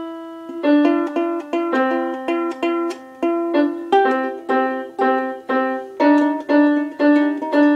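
Ukulele being strummed in a steady rhythm, about two strokes a second, each chord ringing and fading before the next.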